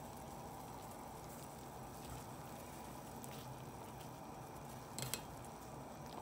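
Pierogies in a pot of water at a rolling boil, a steady faint bubbling; a wire skimmer stirs them, with a couple of faint clinks about five seconds in.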